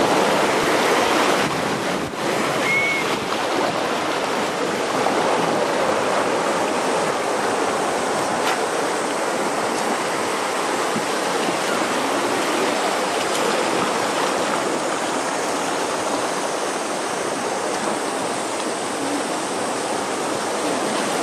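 Rushing, churning water of shallow river rapids, heard from a boat running through them: a steady, loud rush of water.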